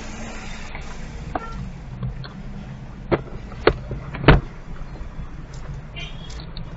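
Steady low engine hum of a car crawling in slow traffic, heard from inside the cabin, with three sharp knocks about half a second apart in the middle; the last knock is the loudest.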